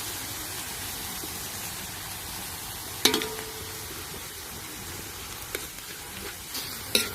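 Minced meat and garlic sizzling as it is stir-fried in a hot pan, with a steady frying hiss. A spatula strikes the pan with a ringing clank about three seconds in and again near the end.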